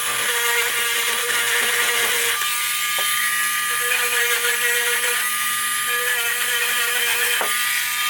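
Handheld rotary tool (a Dremel-style tool) running steadily with a high whine, used to buzz clean the switch contacts of a pinball drop target assembly. Its pitch dips briefly now and then, and it winds down near the end.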